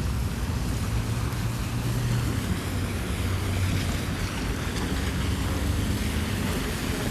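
Steady low rumble of street traffic with wind noise on the microphone and a faint steady hum.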